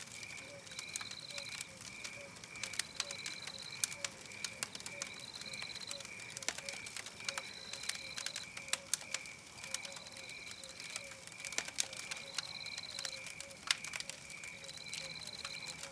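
Wood fire crackling with irregular sharp pops. Under it runs rhythmic chirping: a quick pulsing note two or three times a second, and a higher short trill every two seconds or so.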